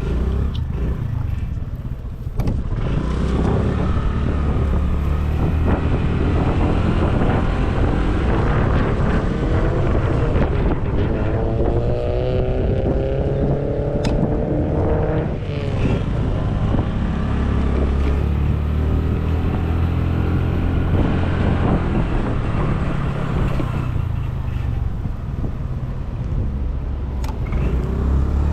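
Motorcycle engine running while riding through traffic, with road and wind noise. Around the middle its note rises steadily for several seconds as it speeds up.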